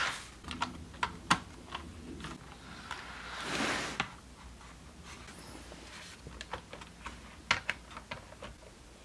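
Piko HO-scale ICE 3 model train cars pushed by hand along the track: scattered sharp clicks and rattles of wheels, couplers and fingers on the plastic bodies, with two brief swells of sliding noise, one at the start and one about three and a half seconds in. The motored bistro car does not roll freely without power and is shoved along.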